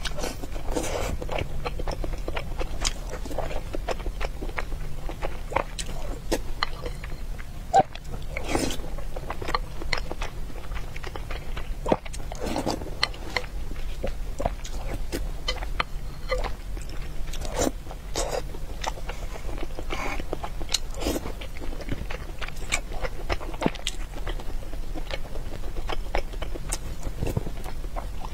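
Close-miked eating sounds: chewing and biting, with frequent short wet clicks and smacks spread unevenly throughout.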